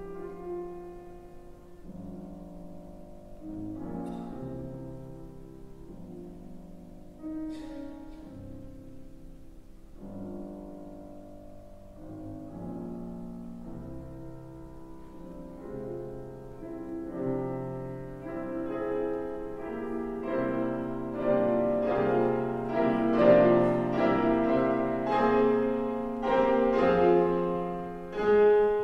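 Solo grand piano playing a classical piece. It starts softly and builds through the second half to a loud, full climax.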